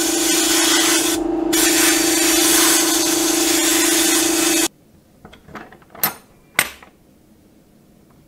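Sandblast gun blasting abrasive onto an axe head inside a blast cabinet to strip the rust: a loud steady hiss with a hum beneath it. The hiss thins briefly about a second in, then cuts off suddenly a little under five seconds in. Two sharp knocks follow, about half a second apart.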